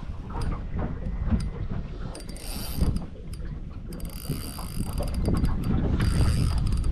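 Spinning reel being cranked to wind in a hooked fish: its gears tick rapidly in spells, over a low wind rumble.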